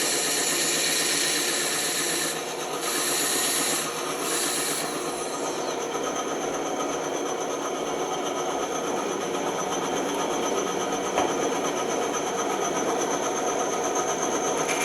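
A woodworking power tool running steadily, with a rasping, grinding sound that drops back briefly twice in the first few seconds and then settles lower, as wood is worked against it.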